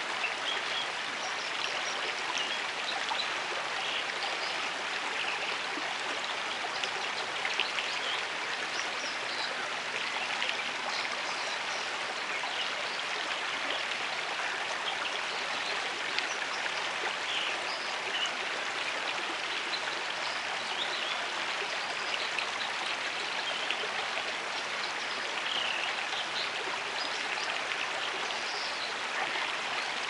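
A shallow creek babbling steadily over rocks and pebbles, a continuous rush of water with small splashes and trickles mixed in.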